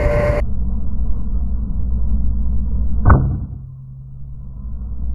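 A single shot from a suppressed FX Impact M3 PCP air rifle about three seconds in: one short, sharp crack. It sits over a steady low rumble of strong wind on the microphone, and the sound is muffled, with its treble cut off.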